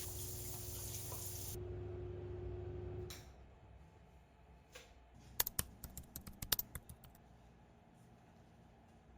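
Shower water running and then shut off about three seconds in, followed by a quick series of light clicks and knocks.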